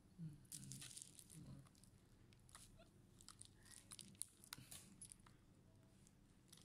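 Faint scattered clicks and crackles of handling as a Dell Inspiron 3511 laptop's metal screen hinge is gripped and swung open by hand.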